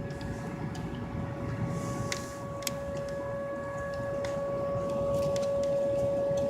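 Outdoor tornado warning siren sounding its steady alert tone of about 540 Hz, held at one pitch without wavering. It grows somewhat louder over the last couple of seconds.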